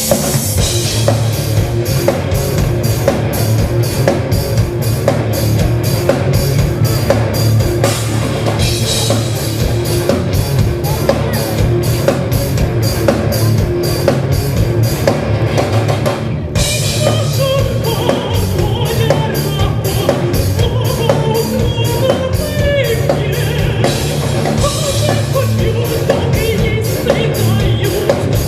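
Rock band playing live: a drum kit keeps a steady beat over bass and guitar. The band breaks off briefly about halfway through, then comes back in.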